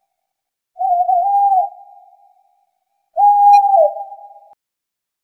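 Barred owl hooting: two long hoots about two seconds apart, each sliding down in pitch at the end.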